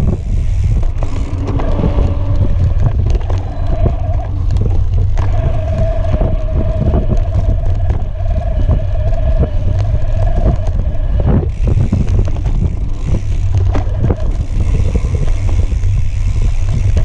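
Electric mountain bike riding over a bumpy dirt singletrack, heard from a camera mounted at the rear: heavy wind rumble on the microphone, with many knocks and rattles from the trail. A steady whine holds through the middle of the ride and then drops out.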